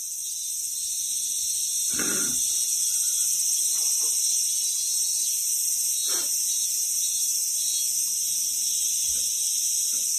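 A dense chorus of cicadas singing as one unbroken high buzz. It swells over the first couple of seconds, then holds steady.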